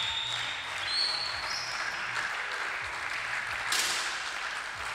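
Steady background hubbub of a shooting hall with the audience murmuring quietly. About three and a half seconds in, a sudden high hiss lasts about a second.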